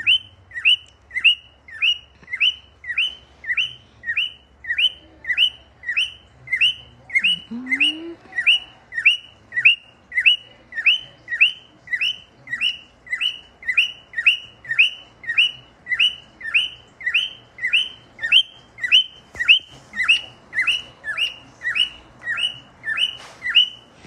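Lutino cockatiel chirping over and over in a steady rhythm, about two short, downward-bending chirps a second. It is the bird's greeting song on its owner's return.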